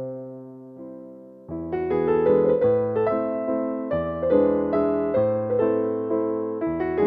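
Background piano music: a held chord fading away for about a second and a half, then a livelier run of struck notes and chords.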